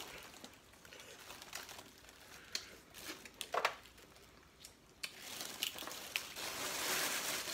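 Plastic seafood-boil bags crinkling and rustling, with scattered small clicks and cracks of corn and shellfish being eaten and peeled by hand; the rustling gets denser about five seconds in.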